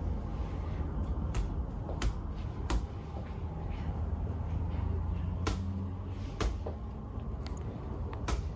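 About half a dozen sharp knocks or taps, unevenly spaced, over a steady low hum.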